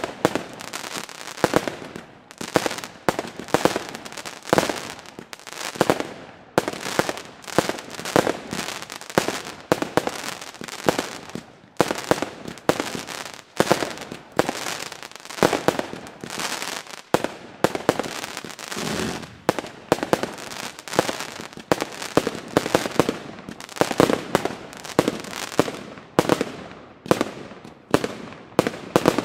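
Aerial fireworks bursting overhead in a rapid, irregular string of sharp bangs, several a second, with hardly a pause.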